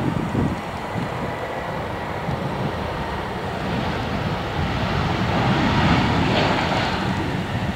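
Airbus A320 jet engines on the landing roll just after touchdown. A broad rush swells from about halfway through to a loud peak near the end, then eases. Wind buffets the microphone.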